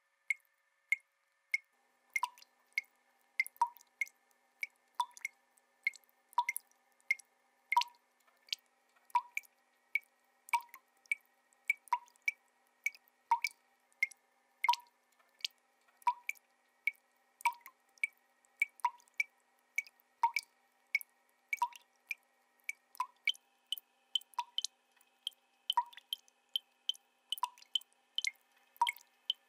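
Ping-pong balls bouncing in a steady rally, about two short pitched clicks a second, higher and lower tocks alternating, over faint sustained tones. A higher held tone joins about 23 seconds in.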